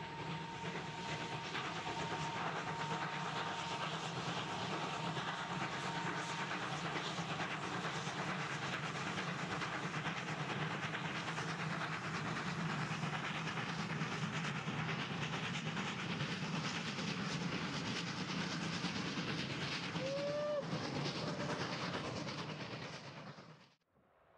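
Two steam tank locomotives, ÖBB 30.33 and 93.1420, double-heading a passenger train past: steady steam exhaust and the clatter of the carriages on the rails. The sound fades out near the end.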